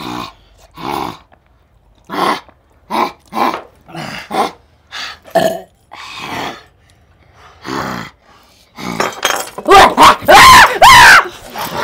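Men's voices making short grunts and growling noises, then loud excited shouting with pitch sliding up and down near the end.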